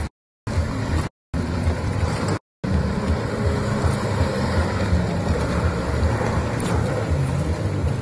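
Jet ski engine running at speed out on the water, under a heavy, fluctuating low rumble. The audio cuts out completely three times, briefly, in the first three seconds.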